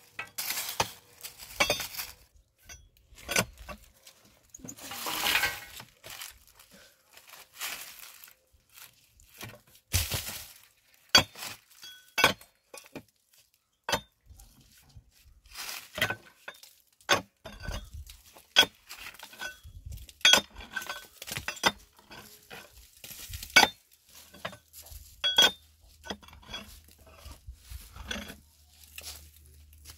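A small hand pick striking the rock of a cave overhang: a series of irregular sharp metal-on-stone clinks, some with a short ring, with a longer scraping rush about five seconds in.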